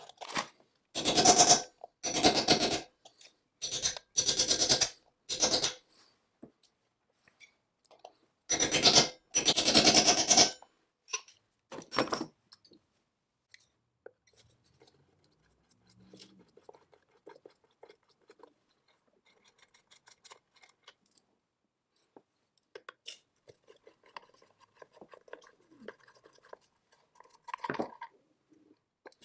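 Screws being driven into a chainsaw's metal housing with a screwdriver: a series of loud, short bursts of rapid clicking in the first twelve seconds. After that come quieter clicks and the handling of small metal and painted parts as they are fitted.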